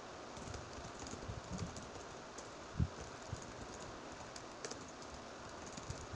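Fingers typing on a laptop keyboard: a quick, irregular run of soft key clicks over a steady background hiss, with one louder key thump about three seconds in.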